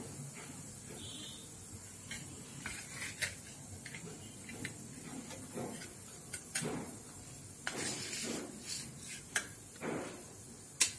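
A spatula scraping under and lifting cut pieces of steamed vadi off a stainless steel plate, with scattered light clicks and scrapes of the spatula on steel. A sharp clink near the end is the loudest sound.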